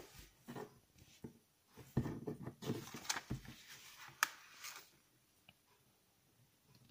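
A sheet of origami paper rustling and crackling as hands fold, flip and crease it against a wooden tabletop, with a couple of soft thumps of hands on the table. The short crisp rustles stop about five seconds in.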